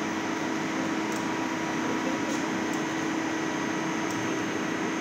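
CNC lathe running with a steady hum and one steady tone, its spindle turning while the tool slide traverses to its start position.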